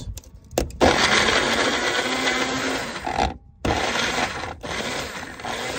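Magic Bullet personal blender chopping roasted jalapeño, serrano peppers and garlic, after a couple of clicks. It runs for about two and a half seconds, stops briefly, then runs again for about two seconds.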